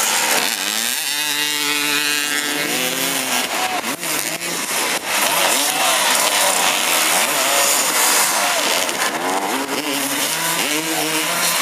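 Several motoball dirt-bike engines revving, their pitch rising and falling unevenly as the riders accelerate and ease off. One engine climbs in pitch in the first two seconds and holds briefly.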